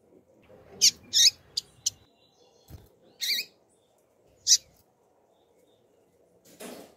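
Female double-collared seedeater (coleiro) calling: about six short, sharp, high chirps in the first five seconds, some with a quick wavering pitch. Near the end comes a brief, softer rush of noise.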